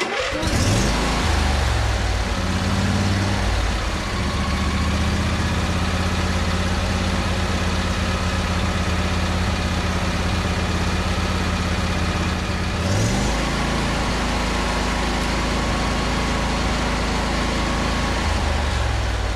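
Husqvarna YTH22V46 riding mower's V-twin engine starting on full choke and running steadily. About two-thirds of the way through, the engine speed rises briefly, then settles again.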